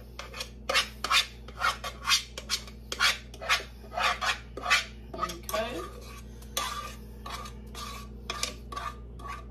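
A utensil scraping and knocking against the inside of a mixing bowl in quick repeated strokes, about two or three a second, as the last of the cornbread batter is scraped out.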